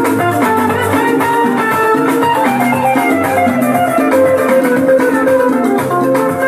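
Loud dance music, a plucked guitar melody over a steady drum beat.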